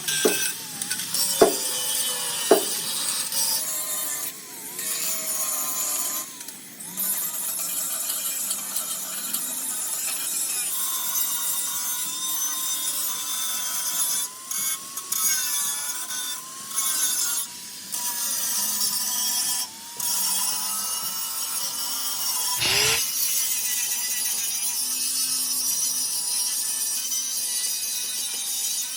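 Handheld power tool running with a steady, slightly wavering whine while it grinds or sands metal bodywork. It cuts out briefly several times, and two sharp knocks come in the first few seconds.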